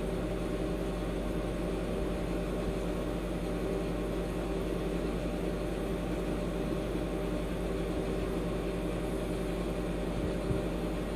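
Steady machine hum with an even hiss, a constant motor or pump running without change.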